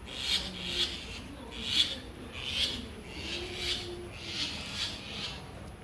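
Fallen fledgling bird giving a series of short, raspy, hissing calls, about two a second.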